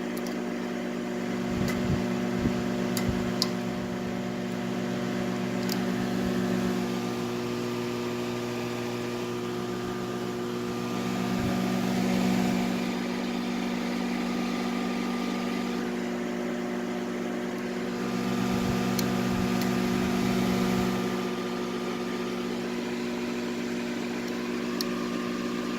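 GE microwave oven running: a steady electrical hum with its cooling fan, swelling a little twice, with a few faint clicks. The oven is under fault-finding, with voltage at the magnetron dropping out whenever it is switched on.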